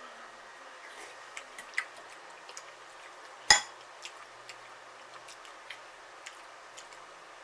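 Eating sounds: scattered light clicks of cutlery against dishes and chewing, with one sharp loud knock about halfway through.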